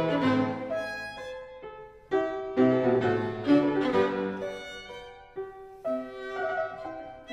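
Instrumental music led by bowed strings, playing phrases of sustained pitched notes. Each phrase starts sharply and dies away.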